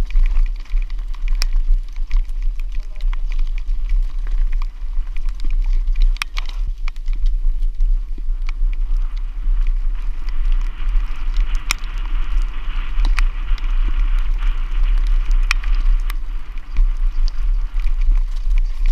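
A mountain bike descending a dirt singletrack at speed: wind rumbling on the camera's microphone, tyre noise on the dirt, and frequent sharp clicks and rattles from the bike over bumps. The tyre hiss grows louder from about halfway through for several seconds.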